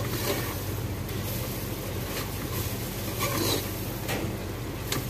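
A metal spoon stirring thick onion-tomato masala in an aluminium cooking pot, with a few scrapes against the pot, over a steady low hum.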